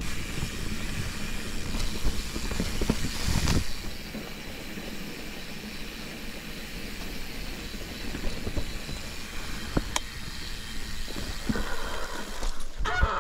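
Mountain bike ridden over a rough forest dirt singletrack: a steady rumble of tyres and rattling bike, with a few sharp knocks over bumps.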